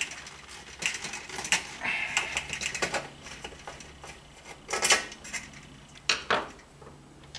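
Scattered metallic clicks, scrapes and light clatter of a screwdriver backing out the single screw that holds the ballast in a fluorescent shop light's sheet-metal housing, with a few sharper knocks as the tool and parts are handled.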